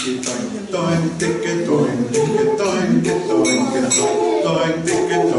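A group of male voices singing a cappella in several parts.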